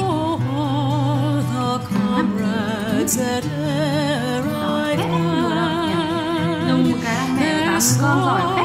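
Background music: a wavering, heavy-vibrato melody over long held low notes that change every second or two.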